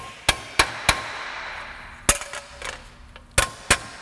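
Hammer striking the tab of a thin stamped-steel brake backing plate clamped in a bench vise, bending the tab over: sharp metallic blows about three a second, a single blow about two seconds in, then another quick run near the end.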